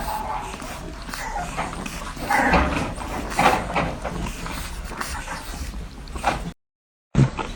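Newborn French Bulldog puppies nursing: wet suckling and smacking with tiny squeaks and whimpers. The sound cuts out completely for about half a second near the end, then carries on.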